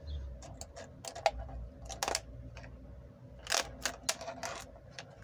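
A hand stapler clicking and snapping repeatedly as it staples the edges of a cut plastic water bottle shut, in a string of irregular sharp clicks.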